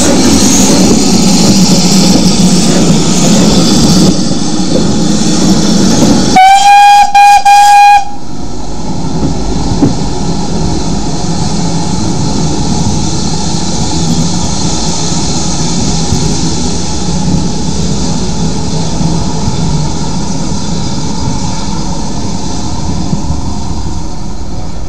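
Great Western Railway tank steam locomotive hissing steam, then giving one high whistle blast of about a second and a half some six seconds in. It then works away with a steady rumble and hiss of exhaust as it pulls the train out.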